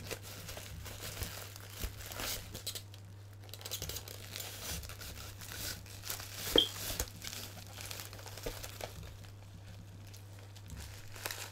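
Bubble wrap and cardboard packaging crinkling and rustling as bubble-wrapped action figures are handled and lifted out of a box, with one sharp click about two-thirds of the way through.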